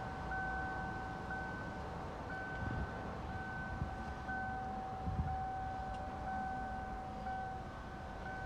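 The Kia Sportage's electronic warning chime sounds over and over at about one a second, a steady high tone with a brief break between repeats. Under it are low rumbling noise and a few soft knocks.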